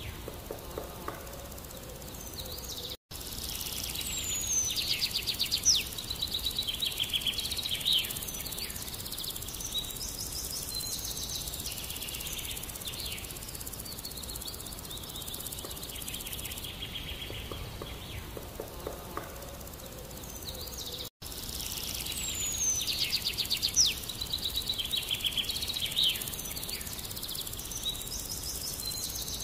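Small birds chirping and singing outdoors, with rapid trills and short whistles, over a steady background hiss. The sound drops out for an instant twice, about 3 and 21 seconds in.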